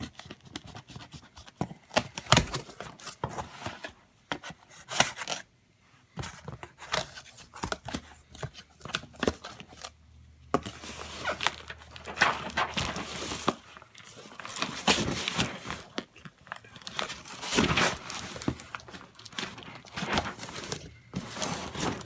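Cardboard shipping box being opened by hand: packing tape being cut and torn off, with irregular rips, scrapes and crinkling of cardboard. There are longer ripping stretches in the second half.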